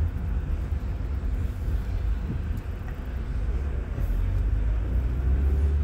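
Car being driven, heard from inside the cabin: a steady low rumble of engine and road noise that grows a little louder about four seconds in.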